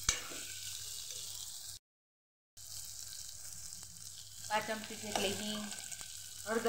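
Sprouted moong beans sizzling as they fry in oil in an aluminium pressure cooker, a steady hiss, with one sharp clink of the steel spoon against the cooker right at the start. The sound drops out completely for under a second about two seconds in.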